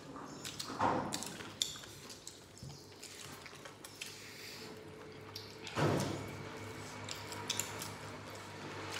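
Close-up eating sounds: wet chewing and lip smacks, with fingers squishing rice and curry, a scatter of small clicks and two louder mouth sounds, about a second in and near six seconds.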